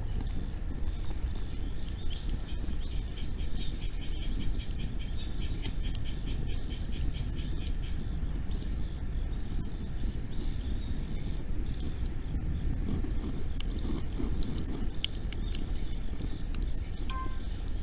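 Outdoor bonfire ambience: a steady low rumble with scattered sharp crackles, thickest a few seconds from the end. A rapid high trill sounds for several seconds near the start.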